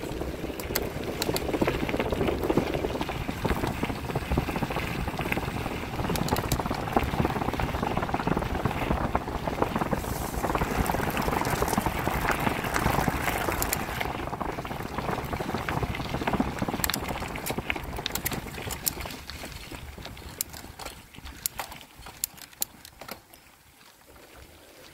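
Bicycle tyres rolling on a gravel forest track: a steady rough noise with scattered rattling clicks from the bike, getting much quieter in the last several seconds.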